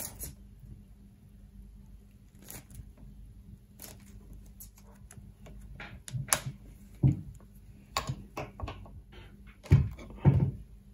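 Small side cutters snipping through the plastic insulation and wire of 300-ohm ladder line: scattered sharp clicks, cutting a quarter-inch gap in one conductor for a dual-band J-pole antenna. Near the end come two heavier knocks as the ladder line is pressed down onto a wooden board.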